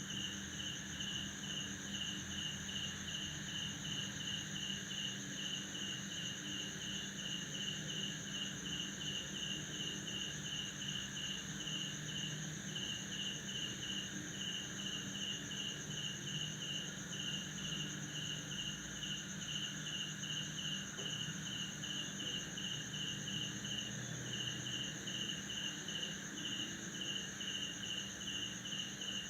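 Night chorus of crickets after rain. One high trill runs steady and unbroken, while another chirps in rapid, even pulses with a few short breaks, over a low steady drone.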